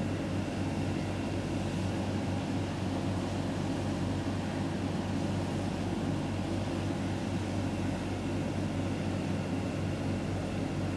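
A steady low hum with a hiss over it and a thin, faint high whine, unchanging throughout.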